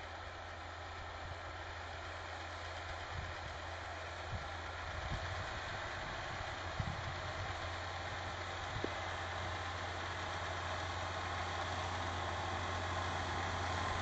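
Claas Ares 836 RZ tractor engine running steadily under load while pulling a Vogel & Noot Terramat power harrow and Rabe Multidrill seed drill through tilled soil, growing louder as it draws nearer.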